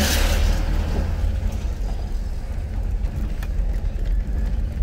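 A car's engine and tyres make a steady low rumble, heard from inside the cabin while driving. A short hiss sounds right at the start.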